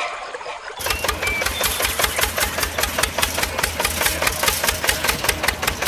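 A small engine starts up running about a second in, with a rapid, even knocking rhythm.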